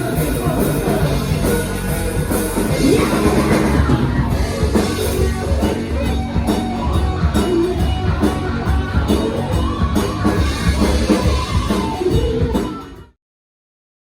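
Rock music with drums, guitar and singing, which cuts off abruptly about 13 seconds in, leaving dead silence.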